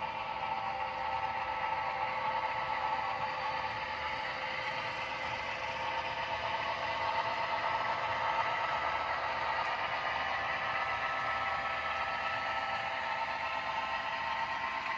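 Model freight train running: a steady electric-motor and gear whine with the wheels clattering and rattling along the track.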